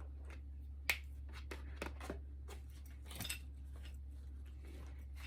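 Scattered small clicks and taps of alcohol markers and their plastic caps being handled, with the sharpest click a little under a second in, over a steady low hum.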